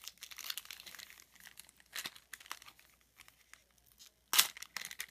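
Foil card-pack wrapper crinkling in the hands as it is pulled open and the cards are slid out, with irregular crackles and one loud, sharp crackle near the end.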